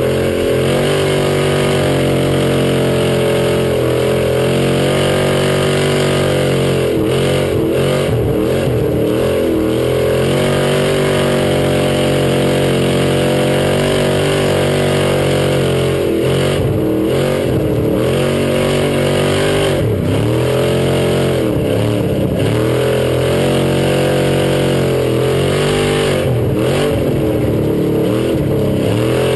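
Thundercar dirt-track stock car engine heard from inside the cockpit, running hard at racing speed. Its pitch dips and climbs again several times as the driver comes off the throttle for the turns and gets back on it.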